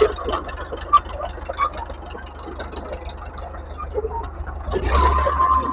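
Fiat 555 crawler tractor's engine running steadily while its mounted roller winds in an olive harvest net, with scattered clicks and scraping. A steady higher whine comes in near the end.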